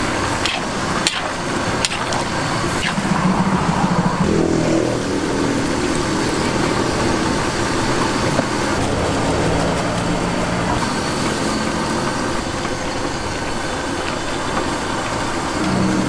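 Road traffic with vehicle engines running, one louder engine passing about three to five seconds in. A few sharp clinks and scrapes from a metal spatula stirring a large wok of curry come in the first three seconds.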